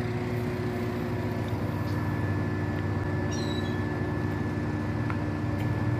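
Steady drone of an idling engine, a constant low hum that holds unchanged, with a faint short chirp about three seconds in.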